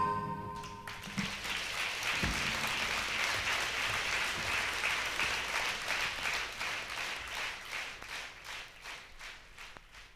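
A song's last chord dies away in the first second, then an audience applauds, the applause fading out gradually toward the end.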